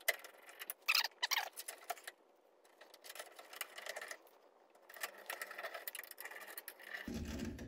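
Small metal clicks and scrapes of a headlight retaining ring and its screws being fitted by hand into a 1977 Chevy Camaro's headlight bucket. There are a few sharp clicks in the first second and a half, then a run of light scraping and rattling.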